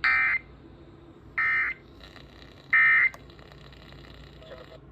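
Emergency Alert System end-of-message (EOM) signal: three short bursts of SAME digital data tones, each about a third of a second long and spaced about 1.4 seconds apart, marking the end of the monthly test.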